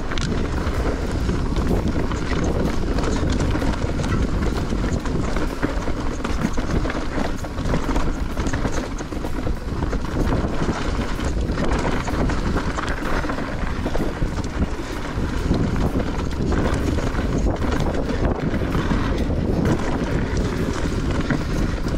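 Wind buffeting the microphone over the noise of a Giant Reign E+ electric mountain bike riding a rough dirt trail: tyres rolling and the bike rattling over the ground, steady throughout.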